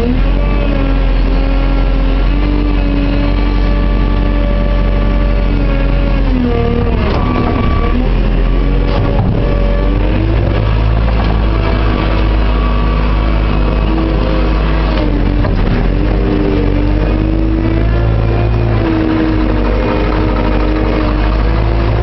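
Telehandler's diesel engine heard from inside the cab, revving up and down several times as the boom and bucket are worked to load a dump truck with topsoil.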